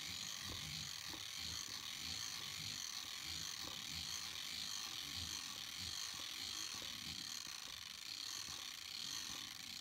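Bolex H16 16mm cine camera's clockwork spring motor being wound all the way up with its crank: a steady run of ratchet clicks as the crank turns.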